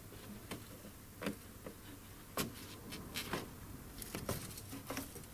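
Plastic windshield cowl panel of a Mercedes W211 being worked loose by hand, giving scattered plastic clicks and knocks at irregular intervals, the sharpest about two and a half seconds in.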